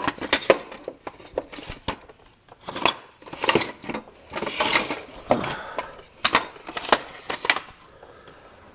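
Metal hand tools clinking and knocking against the exhaust downpipe bolts and underbody, a string of irregular sharp clicks with a few short scrapes.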